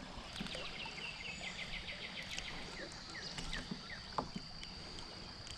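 Faint outdoor ambience: a bird sings a quick run of short repeated high notes over a steady high-pitched whine, with a couple of light clicks about four seconds in.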